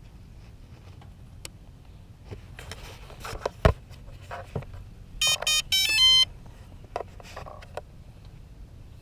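A few handling clicks and a sharp knock, then a quick run of electronic beeps at changing pitch lasting about a second: the start-up tones of a quadcopter rig with a GoPro being powered on.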